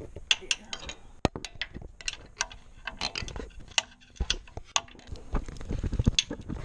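Ratcheting wrench clicking in quick, irregular runs as a bolt is turned.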